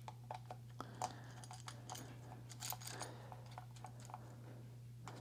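Faint, scattered clicks and light knocks of small parts and screws being handled and fitted by hand into a Kirby Generation 3 vacuum's metal housing, over a low steady hum.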